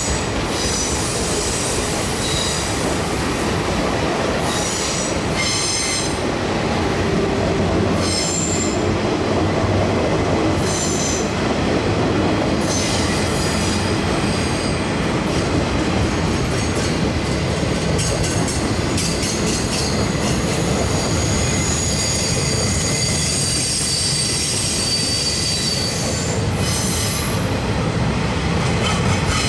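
Train cars rolling past on a curve, a steady rumble of steel wheels on rail with high-pitched wheel squeal that comes and goes, held longest in the second half. The cars are passenger coaches followed by flatcars loaded with trailers.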